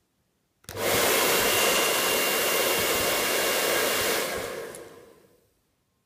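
Hand-held hair dryer switched on about a second in, blowing steadily with a faint high whine in the rush of air, then switched off and winding down over about a second and a half.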